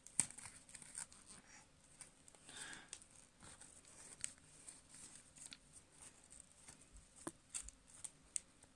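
Faint rustling with scattered light clicks and taps as small things are handled on a hard floor, with one sharper tick about seven seconds in.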